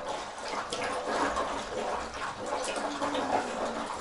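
Dogs lapping broth from a bowl: quick, irregular wet laps and splashes of liquid.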